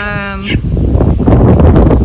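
A short held hum, then loud low rumbling wind buffeting the microphone.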